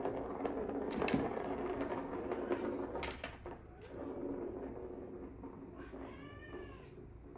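A small plastic ball rolls around the channel of a plastic cat track toy, a steady rumble broken by sharp clacks as a paw knocks it against the plastic. About six seconds in, a cat gives a short meow that rises and falls in pitch.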